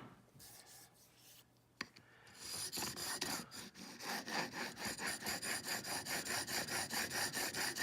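A thin Japanese dovetail chisel, clamped in a Sharp Skate honing guide, is rubbed back and forth on a sharpening stone in quick, even strokes, about four a second. The strokes start about two and a half seconds in, just after a single click.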